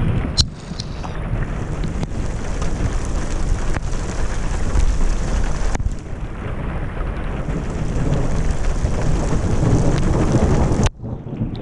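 Thunderstorm: steady heavy rain with wind on the microphone and a deep rumble that swells in the second half, broken by a few sharp ticks of drops hitting close by. The sound dips suddenly about eleven seconds in.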